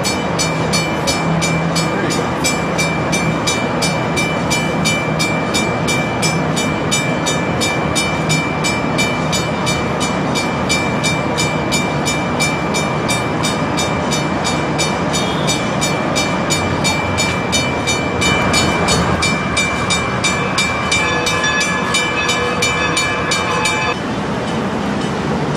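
Bascule bridge warning bell ringing steadily, about three strokes a second, then stopping near the end.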